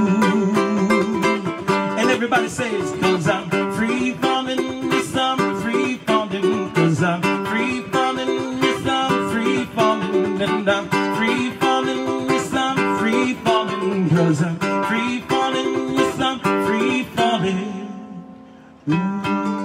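Ukulele strummed in a steady rhythm, fading out near the end, then a new strumming pattern starting abruptly after a brief pause.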